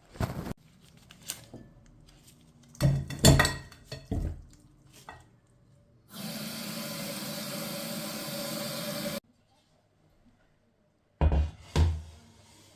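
Pots and dishes knocking and clattering, with a water tap running steadily for about three seconds in the middle; two more sharp knocks come near the end.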